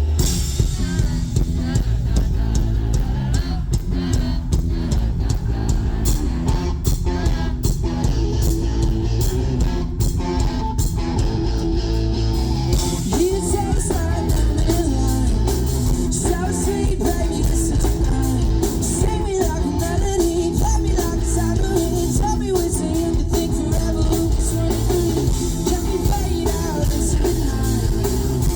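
Indie rock band playing live through a PA: drums, electric guitar and bass, with singing. The sound gets brighter and fuller about halfway through.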